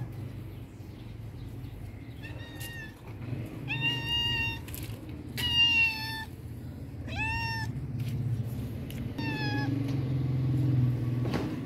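Domestic cat meowing five times as it walks up, short calls a second or two apart, the loudest about halfway through. A steady low hum runs underneath and grows louder near the end.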